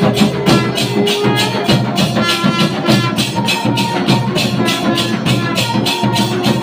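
Music with a fast, steady shaker-like percussion beat under a melody.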